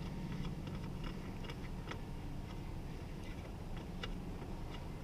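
Light, irregular clicking, a few clicks a second, as T27 Torx screws are driven back in with a hand tool to refit a truck's third-door handle. Under it runs a steady low hum.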